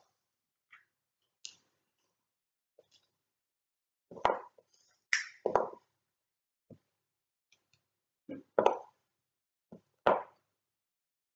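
Backgammon checkers set down on the board, landing and stacking with short sharp clacks. They come in small groups, about four to five and a half seconds in, again near eight and a half seconds and once more at ten seconds, with quiet gaps between.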